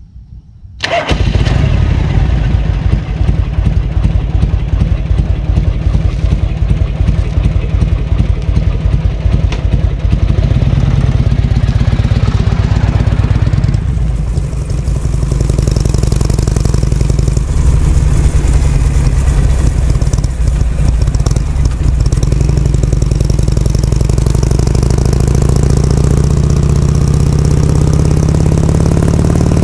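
Harley-Davidson Shovelhead FLH's V-twin engine starting about a second in, then running with a steady pulsing beat. The sound turns brighter about halfway through, and near the end the revs rise.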